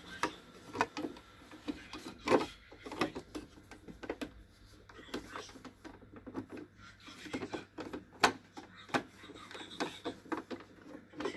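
Irregular plastic clicks, knocks and rubbing as a small portable sewing machine's cover and parts are fitted back on and handled.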